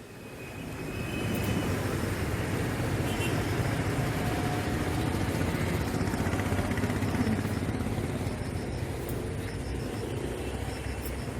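Steady outdoor background noise with a low rumble, fading in over the first couple of seconds, and a few faint short chirps.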